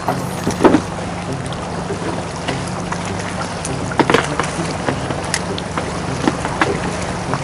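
Small boat's engine running at a low, steady idle, with water slapping against the hull a few times, loudest about a second in and again around four seconds in.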